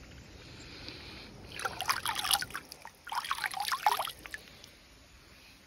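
Shallow stream water splashing and sloshing as a hand scoops through it, in two bouts of about a second each.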